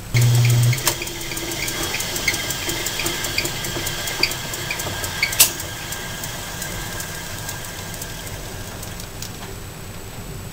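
Logan 922 metal lathe running, its three-jaw chuck spinning, with a brief loud low hum at the start, then a steady run with light regular ticking about two to three times a second and one sharp click about five seconds in. The sound tapers off near the end as the spindle comes to a stop.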